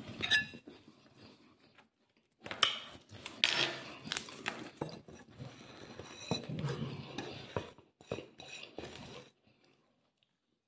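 Clinks, knocks and scraping on a dark glass plate as food is gathered off it by hand, in an irregular run lasting several seconds and stopping near the end.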